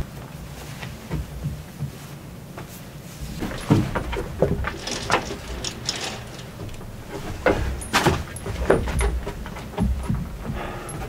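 Bedding and blankets being handled and rustled, with scattered irregular knocks and bumps against wood.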